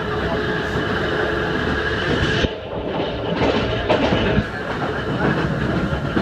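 Ohmi Railway class 220 electric railcar running at speed, heard from inside the car: the rumble of its nose-suspended (tsurikake) motor drive and wheels, with a faint steady whine in the first half. About halfway through the sound briefly dulls, then a few sharp clacks of the wheels over rail joints follow.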